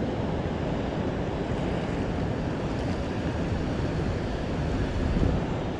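Water rushing and churning below a spillway: a steady, even rush, with wind buffeting the microphone.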